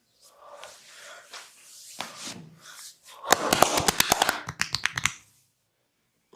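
Hands rubbing and stroking oiled skin in a massage, then a fast run of sharp hand slaps, about eight a second for nearly two seconds: percussive chopping or tapping massage strokes.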